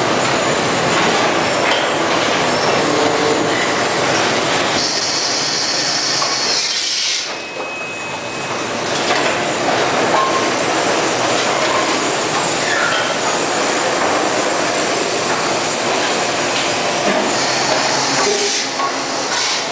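Loud, steady machinery noise of a CRT television production line: conveyors and automated assembly equipment running. A high hiss comes in for about two seconds some five seconds in, and again near the end.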